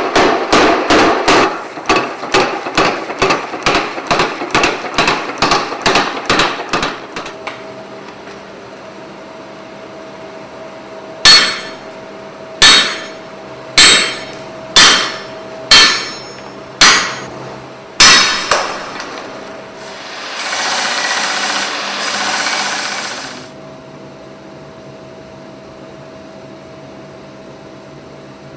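Mechanical power hammer forging red-hot steel in quick, even blows, about three a second, until it stops some seven seconds in. After a pause come seven separate hand-hammer blows on the anvil, roughly one a second, then a few seconds of rushing hiss, with a steady hum underneath.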